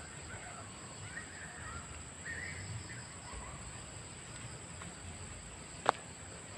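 Faint bird calls over a steady high-pitched insect buzz at a riverbank, with one sharp click near the end.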